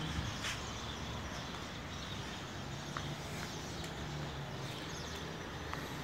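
Steady outdoor street background noise, with a faint engine hum through the middle and a few light clicks.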